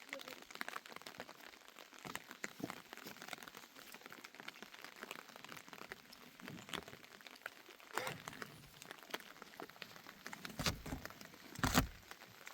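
Scattered crackling and rustling, like material being handled or crumpled, with two louder knocks about a second apart near the end.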